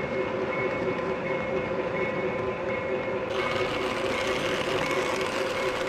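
O gauge electric toy trains running on the layout's track: a steady rumble of wheels on rail with a constant motor hum. The sound turns suddenly brighter a little past three seconds in.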